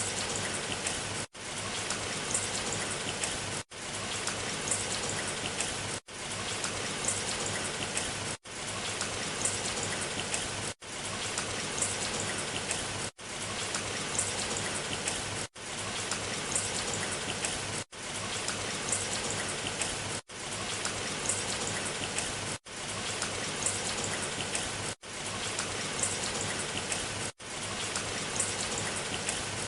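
Steady rain falling, with drops pattering on a surface. The sound cuts out for an instant about every two and a half seconds, then resumes at once.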